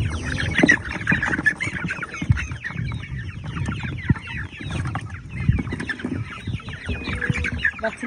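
A crowd of six-week-old chickens in a brooder pen calling continuously, many short, mostly falling calls overlapping, with a few knocks and handling noise underneath.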